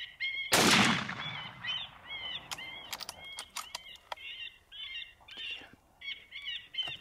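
A rifle shot about half a second in, ringing out and fading over about a second. Short, high chirping calls repeat about three times a second before and after it.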